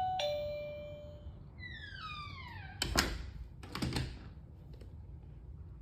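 Mighty Paw Smart Bell 2.0 plug-in receiver chiming, its last note fading out over the first second or so. A falling tone follows about two seconds in, then two dull thunks about a second apart.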